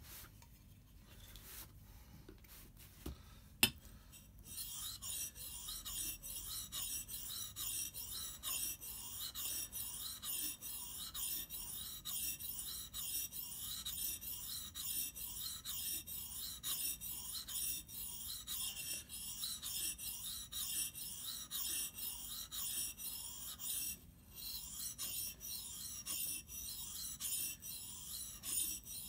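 Steel hatchet blade being stroked back and forth on a wet whetstone: a rhythmic gritty rasping that starts about four seconds in, just after a single sharp knock, and keeps going with one short pause about three-quarters of the way through.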